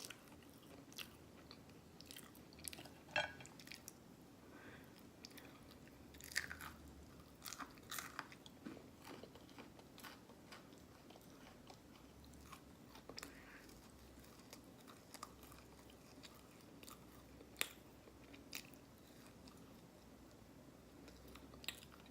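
Faint, slow chewing of waffles, with scattered sharp wet mouth clicks and lip smacks.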